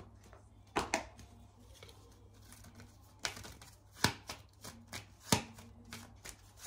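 A tarot deck being shuffled by hand: soft rustling of cards broken by about six sharp snaps or slaps of cards at irregular intervals.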